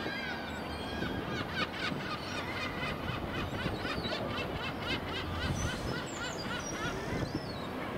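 A flock of birds calling in many quick, overlapping chirps, over a steady low rumble.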